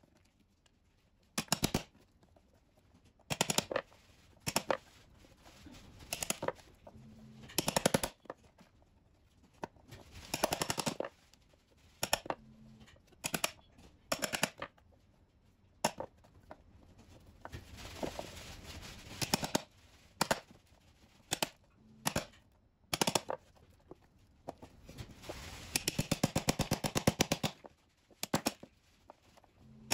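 Claw hammer striking hard, woody chaga fungus lumps on a wooden board: groups of sharp knocks with short pauses between them. In the second half come two longer runs of rapid taps.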